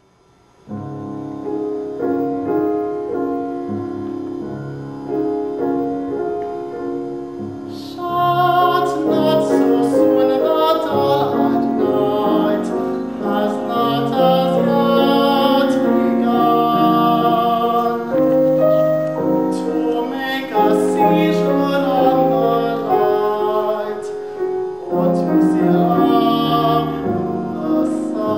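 A piano plays a classical introduction. About eight seconds in, a trained singer enters in operatic style with vibrato, and the piano accompanies to the end.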